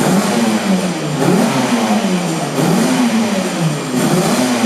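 Cagiva V589 500cc two-stroke V4 Grand Prix racing motorcycle engine being revved in repeated throttle blips. Its pitch rises and falls about once a second, four times over.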